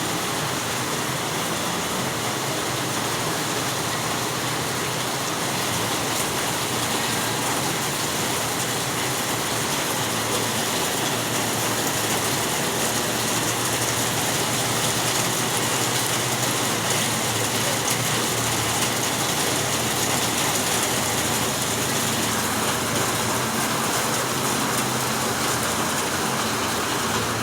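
Steady, even rushing noise of water: heavy rain and floodwater. A faint low hum runs underneath.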